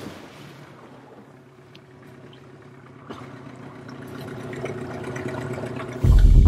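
Two-stroke Yamaha 15 hp Enduro outboard on an inflatable dinghy, throttled back and running slowly, with water splashing along the hull. About six seconds in, loud electronic music with a beat cuts in abruptly.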